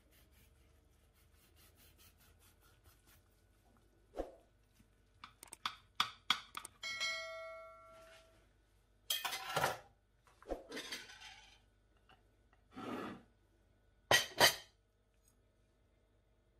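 A knife sawing through a crusty baked minced-meat roll, then clicking and scraping against a ceramic serving platter. About seven seconds in, a dish rings for a moment after being struck, and near the end there are two loud knocks of crockery as a slice is moved onto a plate.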